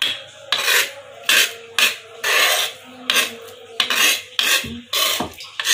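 Metal spoon scraping ground chili-and-spice paste across a stone mortar (cobek), in a run of short scraping strokes, nearly two a second.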